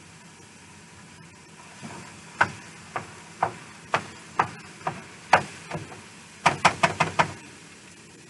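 A cooking utensil knocking against a nonstick skillet while stirring and breaking up browning ground beef, about a tap every half second from two seconds in, then a quick run of about six taps near the end, over the low hiss of the meat frying.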